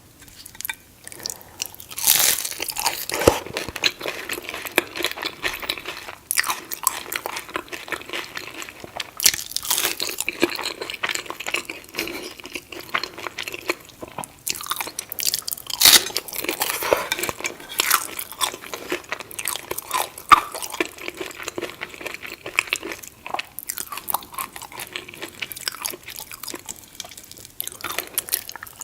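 Close-up crunching and chewing of crunchy food, with irregular crisp bites and crackles throughout.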